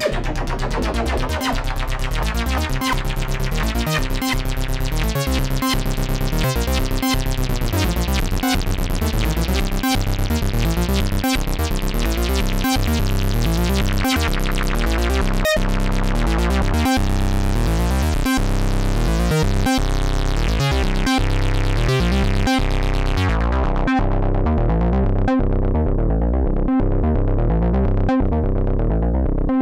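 Dreadbox Typhon analog synthesizer playing a steady repeating run of short notes. About three-quarters of the way through, the filter closes and the sound turns dark and muffled.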